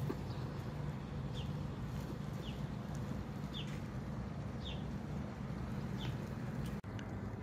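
A bird repeating a short, falling chirp about once a second, over a steady low hum.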